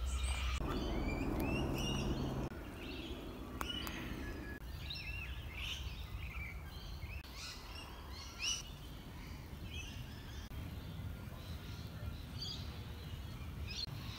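Several forest birds calling: a busy mix of short chirps and whistled notes, over a steady low background rumble that carries a low hum for the first two seconds or so.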